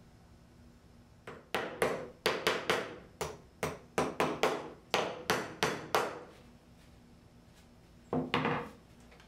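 A small steel hammer taps epoxy-coated mosaic pins down into the drilled holes of a wooden knife handle on a workbench: about fifteen quick, sharp taps over some five seconds, seating the pins. A short rubbing sound follows near the end.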